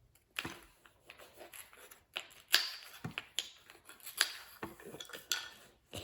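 Small plastic fidget toys being handled: irregular clicks, taps and rubbing as pieces are pulled apart, fitted together and set down.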